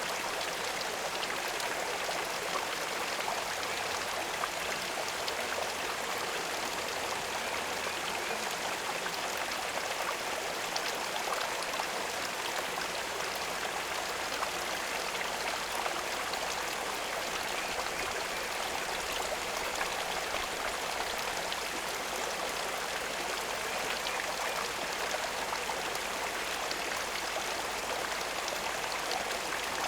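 Steady running water, a continuous even splashing with small drops pattering through it.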